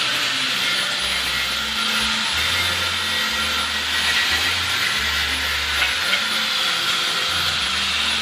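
A power tool's motor runs steadily with a loud, high whir. Near the end its whine begins to fall as it winds down.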